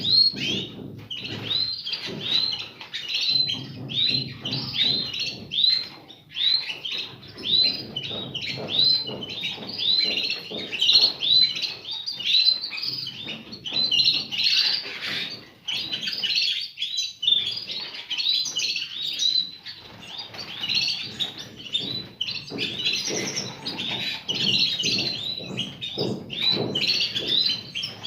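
Small cage birds chirping in a rapid, continuous run of short high chirps, several a second, with a lower rumbling noise underneath in the first few seconds and again near the end.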